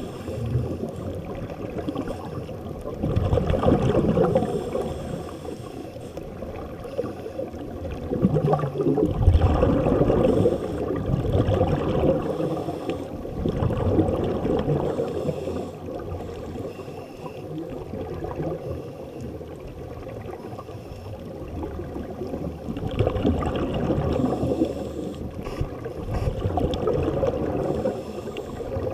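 Scuba regulator exhaust bubbles gurgling underwater as the divers breathe out, in swells every few seconds over a muffled watery rumble.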